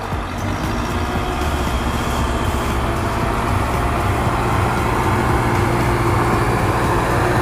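Small electric motors whirring steadily, growing slightly louder over the first second or two: the DC motor driving a homemade PVC model tractor and the pump spraying water from its tanker's boom.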